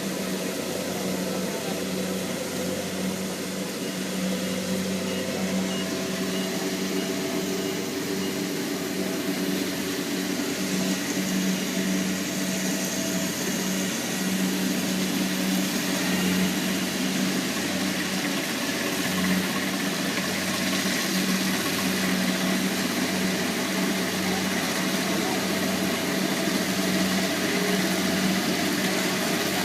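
Kubota DC70 Plus combine harvester's diesel engine running steadily under working load, a constant drone that gradually grows a little louder.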